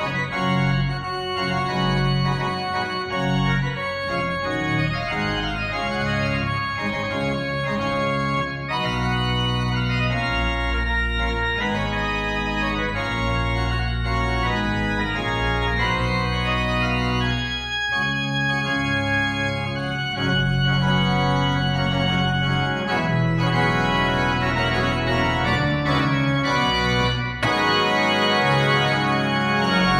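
Pipe organ playing a trumpet tune: a melody over held chords, with deep bass notes, growing louder near the end.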